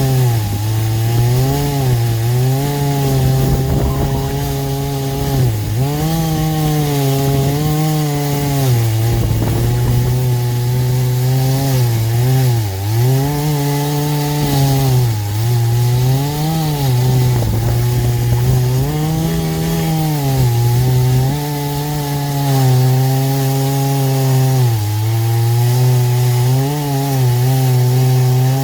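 Chainsaw running at full throttle while ripping a hickory log in an Alaskan chainsaw mill. Its engine pitch dips and recovers every second or two as it bogs under the load of the cut.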